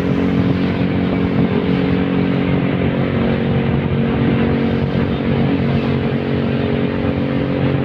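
Habal-habal motorcycle taxi's engine running at a steady speed, heard from on board under a continuous rush of wind and road noise.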